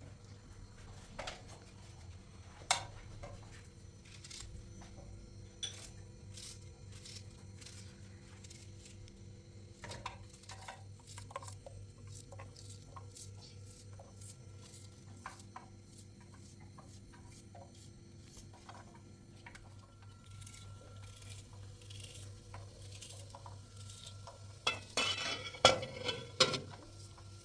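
Dishes and utensils clinking and knocking now and then, with a louder run of clatter near the end, over a steady low hum.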